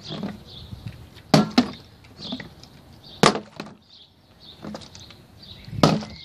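Plastic drink bottle landing and tipping over on wooden decking during bottle flips: a few sharp knocks, a quick double knock about a second and a half in, the loudest near the middle, another near the end.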